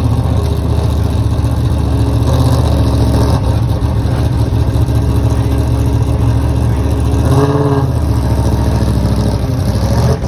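Sports prototype race car's engine running at low speed, loud and steady, with the note rising briefly about seven and a half seconds in.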